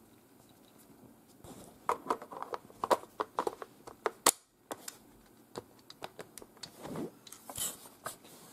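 Plastic magazine of an airsoft shotgun being handled and pushed into the receiver: a run of light clicks and rattles, then one sharp click a little past four seconds in as it seats. Softer rubbing and handling follow near the end.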